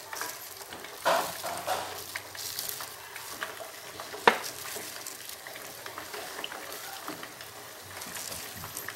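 Chicken drumsticks sizzling in hot oil in a frying pan, with louder spurts of sizzle about a second in and again shortly after as more drumsticks go into the oil. A single sharp click a little past the middle is the loudest sound.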